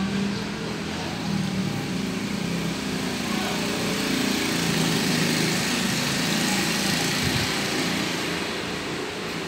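A small engine running steadily, a little louder around the middle.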